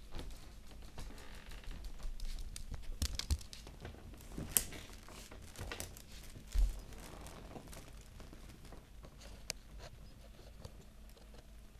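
Blankets rustling, with scattered small clicks, as a Chihuahua puppy and a larger dog move about on them. There is a single loud, dull thump about six and a half seconds in.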